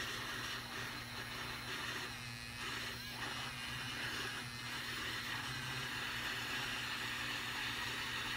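Small handheld stick blender running steadily in a glass jar of 1% hyaluronic acid solution, worked straight up and down to mix it: an even motor hum with a constant whirring hiss.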